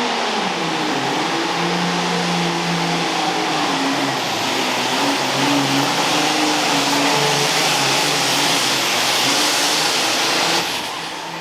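Super Farm class turbocharged diesel pulling tractor running flat out under load, its engine pitch wavering slightly up and down. The sound drops away sharply near the end.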